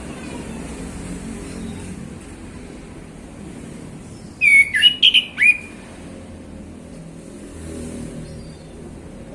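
Male orange-headed thrush singing one short, loud phrase of sweeping whistled notes a little under halfway through, over a low steady background rumble.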